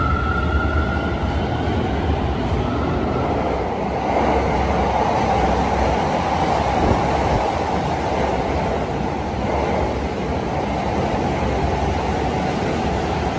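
Commuter electric train, a Toei 10-300 series, running along an underground platform: a dense, steady rumble of wheels on rail that swells about four seconds in. At the very start, a rising electric motor whine from the train pulling away fades out.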